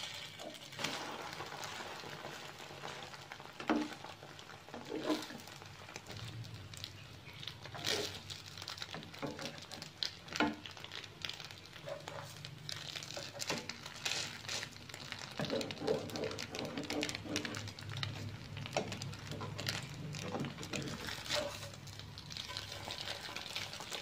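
Duck egg omelette frying in an oiled pan with a faint steady sizzle and a low hum, broken by the spatula scraping and knocking against the pan every few seconds.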